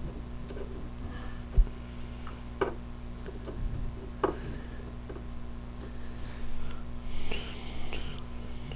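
Handling of a trading-card box and its contents: scattered light taps and knocks, a sharper thump about a second and a half in, and a papery rustle near the end, over a steady low electrical hum.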